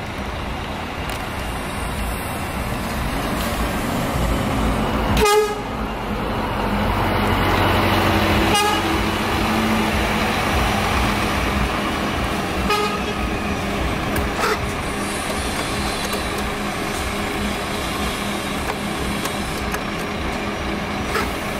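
Scania coach engine running as the bus drives slowly past and away. A few short horn toots sound over it, about 5, 9, 13 and 14 seconds in; the first is the loudest.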